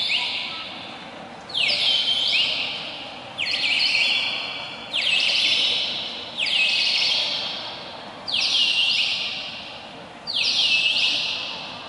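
Bird-like chirping: a cluster of high whistles gliding downward, repeated about every one and a half seconds, each fading out slowly.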